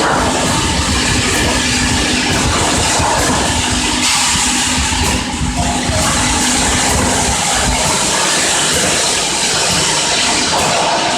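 Piston-pump bottle filling and capping machine running: steady mechanical noise with hissing, and a steady hum that fades out about seven seconds in.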